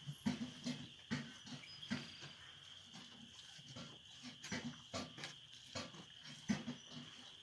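Cow giving short, low grunts in quick, irregular succession: the soft calls a mother cow makes to her newborn calves.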